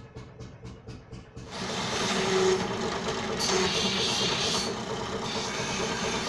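A quieter, even ticking, then about a second and a half in a bench drill press comes in loud and steady, its bit boring into a wooden tool handle, with the cutting hiss strongest a little past the middle.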